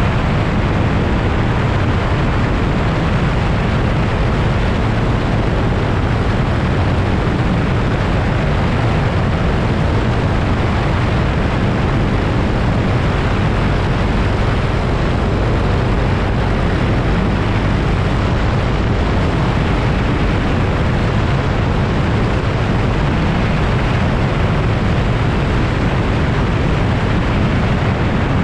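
Light aircraft's piston engine and propeller running at a steady drone in flight.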